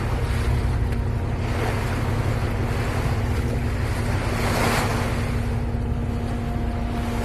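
Bow wave of a moving boat rushing and splashing along the hull, with wind buffeting the microphone and a steady low drone underneath. The splashing swells loudest about two thirds of the way through.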